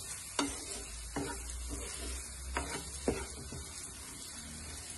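Wooden spatula stirring and scraping spice-coated gooseberry pieces around a nonstick pan, with a light sizzle of the masala frying in oil. About four sharper scrapes stand out in the first three seconds. The spices are being fried to cook off the raw chilli-powder smell.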